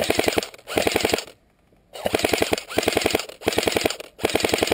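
Airsoft gun firing short full-auto bursts: about six rapid rattles of shots, each roughly half a second long, with brief pauses between them.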